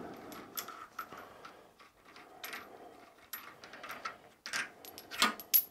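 Light metallic clicks and clinks of a steel adapter being handled and seated in the jaws of a chuck, with a couple of sharper clinks near the end.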